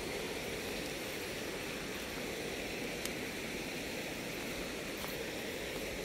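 Steady rushing noise of a boat moving along a river, water and air rushing past, with no distinct engine note.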